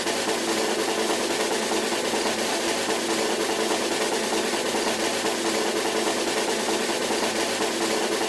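A steady, unbroken drum roll sound effect.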